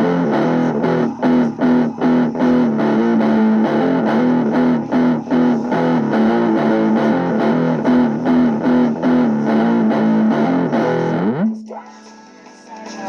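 Music with distorted electric guitar over an even rhythm. A quick rising slide comes about eleven seconds in, then the music drops to a quieter stretch.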